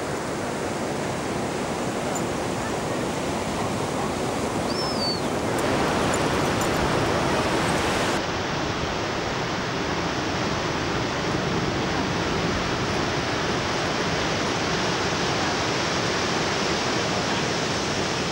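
Ocean surf breaking: a steady rushing wash of waves, louder from about six seconds in. Its sound changes abruptly about eight seconds in.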